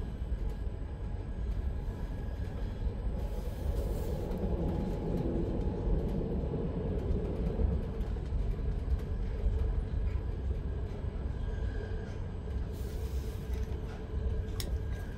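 Running noise inside a double-deck Re 450 DPZ S-Bahn coach at speed: a steady low rumble of wheels on the rails with a faint hum, a little louder for a few seconds in the middle.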